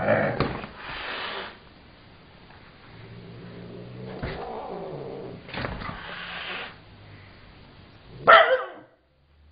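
A cat hissing and growling at a pestering husky: the dog's bark fades at the start, then come hisses and a low growl, and a short, loud cry near the end.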